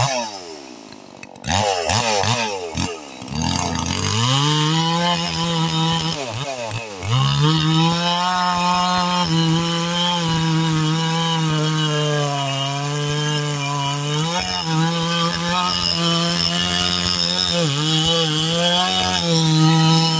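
Big-bore Stihl 440 two-stroke chainsaw, freshly built, revved and dropped back several times in the first seven seconds, then held wide open at a steady high pitch, as when cutting through a log, sagging briefly a couple of times.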